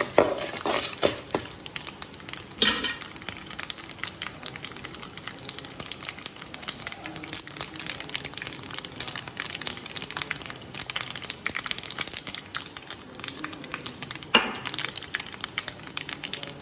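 Tempering spices (dried red chillies, lentils and chilli flakes) crackling and popping in hot oil in a metal pan, many small pops throughout. A metal spatula knocks against the pan a few times near the start and once more near the end.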